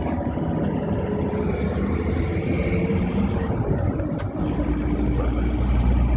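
Road noise of a moving car: a steady rush of tyres, engine and wind, with a deep rumble that grows louder about four and a half seconds in.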